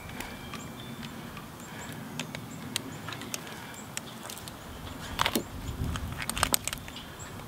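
Metal climbing hardware on a harness and lanyard, snaps and carabiners, clinking now and then over the rustle of rope and clothing being handled, with a run of clinks about five to seven seconds in.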